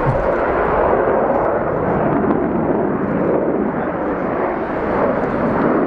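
Jet noise from a Sukhoi Su-27 Flanker's twin AL-31F turbofan engines during its display flight: a loud, steady rumble with no break.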